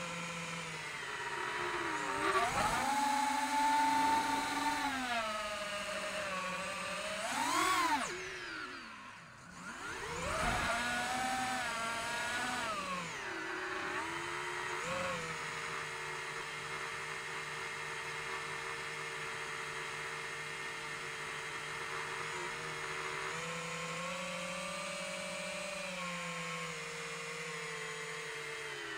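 5-inch FPV quadcopter's brushless motors and props whining, the pitch sweeping up and down with the throttle. About nine seconds in the whine drops nearly away, then climbs back sharply. Later it holds a steady pitch, rising again a little before the end.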